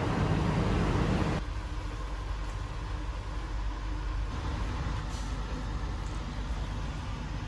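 Steady low rumble of a stationary diesel passenger train alongside the platform. About a second in it cuts off sharply to a quieter, steady low hum inside the passenger coach, with a few faint ticks.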